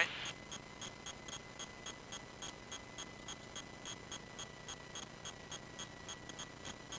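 Faint, even ticking, about three to four ticks a second, over a thin steady high tone, heard in the light aircraft's cockpit audio recording.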